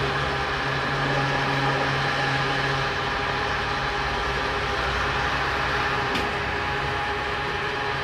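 Fuel dispenser pumping gasoline through the nozzle into a motorcycle tank: a steady electric pump hum with the rush of flowing fuel. The deepest part of the hum drops away about three seconds in.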